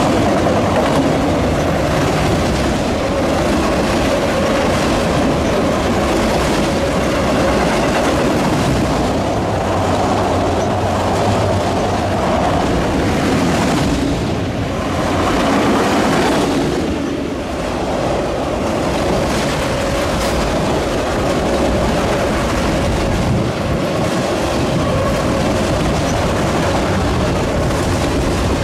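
Long freight train of autorack cars rolling past close by: loud, steady rolling noise of steel wheels on the rails with rattling from the cars, dipping briefly about halfway through.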